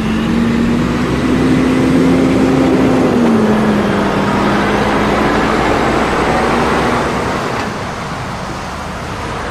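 Heavy rigid truck with a drawbar trailer driving past, its diesel engine giving a steady hum over tyre and road noise. The engine note steps down slightly about three seconds in, and the sound eases off toward the end.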